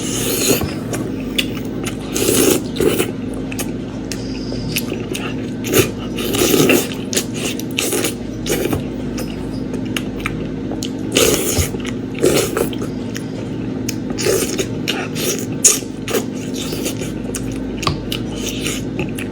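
Close-miked eating: irregular bites and chewing of meat, with wet smacks and scraping sounds, over a steady low hum.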